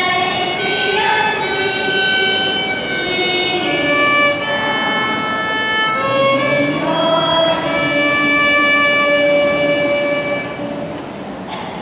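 Slow instrumental accompaniment to a worship song: long held notes, several sounding together, moving to new notes every second or two, getting a little quieter near the end.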